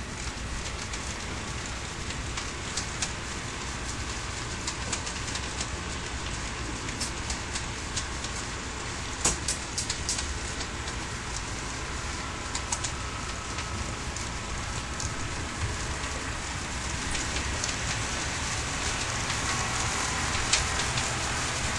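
Long HO scale model freight train rolling on its track: a steady rushing rattle of many small wheels with scattered sharp clicks, slowly growing louder toward the end.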